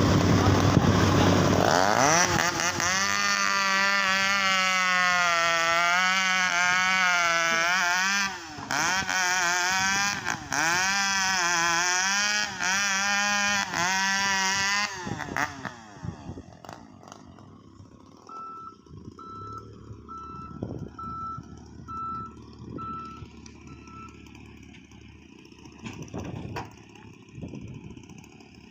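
A loud engine-like drone whose pitch swings up and down over and over, breaking off briefly a few times, then dying away about halfway through. Later a quieter row of about seven short, evenly spaced beeps, like a machine's warning alarm.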